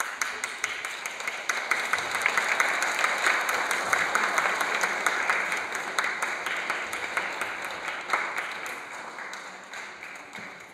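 Audience applauding: many hands clapping together, building over the first couple of seconds and then slowly dying away over the last few.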